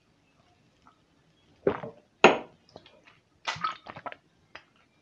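A shot of homemade moonshine swallowed, the small shot glass set down on the table with a sharp clink about two seconds in, then a few short mouth and plastic-bottle sounds as she sips from a sports water bottle as a chaser.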